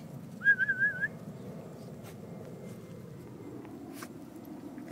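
A dachshund puppy gives one short, wavering whine near the start, over a low steady rustle of pawing and digging in loose soil.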